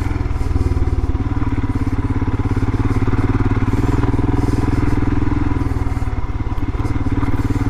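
2021 Royal Enfield Himalayan's 411 cc single-cylinder engine running steadily under way, its firing pulses coming as a fast, even beat; the engine note eases briefly about six seconds in.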